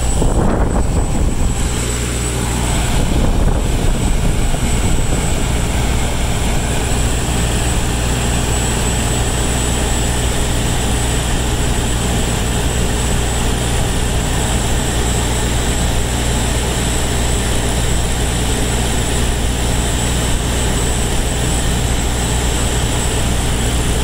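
Diesel generator running steadily under full load, about 30 kW, with the Trane package unit's blower pushing heated air out of the supply duct in a steady rush. The rushing is louder and gustier for the first few seconds.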